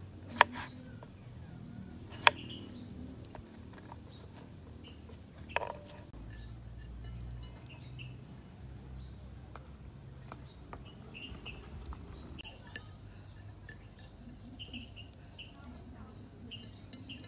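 A kitchen knife cutting through cucumber onto a wooden cutting board: a few sharp knocks in the first seconds. A bird chirps throughout, short high rising notes repeated roughly once a second.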